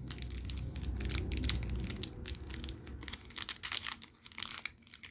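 Foil wrapper of a Magic: The Gathering booster pack being torn open and crinkled in the hands, a dense crackling that is busiest for the first few seconds and thins out toward the end.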